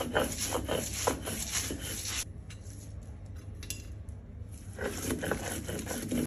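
Stone roller rubbed back and forth on a shil-pata grinding stone, grinding a wet green herb paste in quick rasping strokes, about four a second. The strokes stop about two seconds in, with a few light knocks in the pause, then start again near the end.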